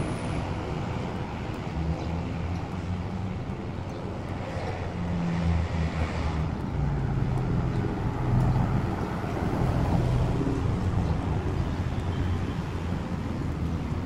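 Street ambience: road traffic with uneven wind noise on the microphone.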